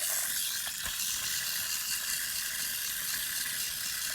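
Small electric motors and plastic gears of battery-powered magic-track toy cars whirring steadily as they run.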